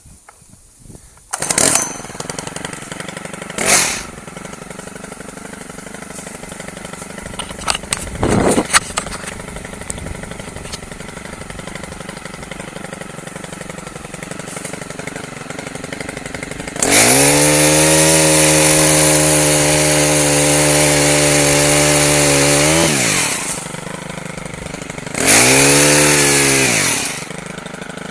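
Two-stroke chainsaw idling, revved up to full throttle for about six seconds as it cuts through the remaining stub of an oak branch, then dropping back to idle before one more short rev near the end.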